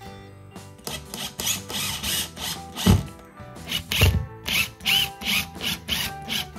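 Cordless Makita impact driver driving flooring screws through a wooden floorboard, in a run of short, quickly repeated bursts, with two low thumps about three and four seconds in. Background music plays underneath.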